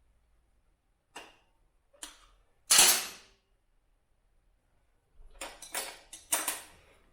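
Sharp metal knocks and clatter of tools and parts being worked and handled: three separate strikes in the first three seconds, the third the loudest, then a quick run of knocks and rattles near the end.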